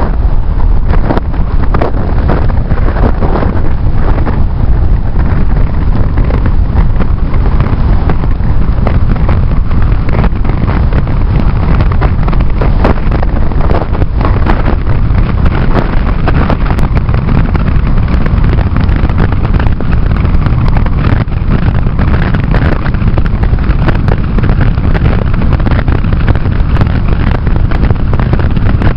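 Strong wind buffeting the camera microphone: a loud, steady low rumble with constant crackle.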